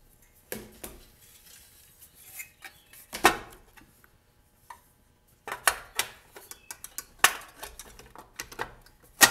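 Blower housing with its recoil starter being handled and set back onto a Briggs & Stratton 650 series lawn mower engine: a series of sharp knocks and clatters at uneven intervals, the loudest about three seconds in and near the end.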